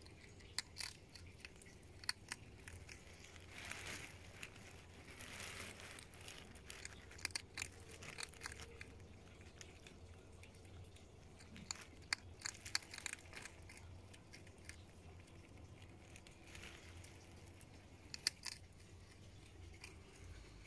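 European hedgehog eating dry pellet food from a bowl: faint, irregular crunches and clicks as it chews, with short snuffling sniffs now and then.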